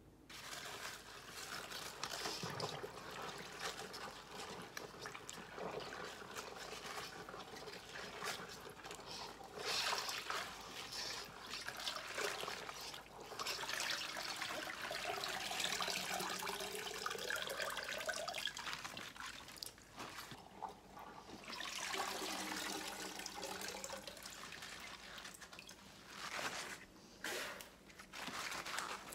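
Water sloshing and dripping as rubber-gloved hands handle halved napa cabbages in a stainless steel pot, with the wet leaves rustling against one another.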